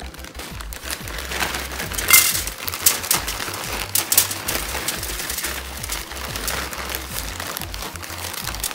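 A plastic zipper bag crinkles as chunks of crushed Oreo cookies are shaken out of it. The chunks drop onto a foil-lined pan in a run of quick, irregular clicks and rattles, over background music.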